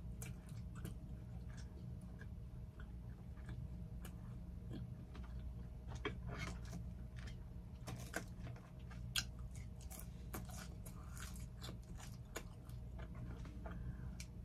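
Close-miked chewing and biting of a homemade cheeseburger: irregular wet mouth clicks and smacks, the sharpest about nine seconds in. A steady low hum runs underneath.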